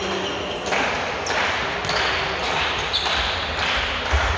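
Handball being played on a wooden indoor court: the ball bouncing and thudding on the floor amid players' footsteps, echoing in the large hall, with heavier low thuds near the end.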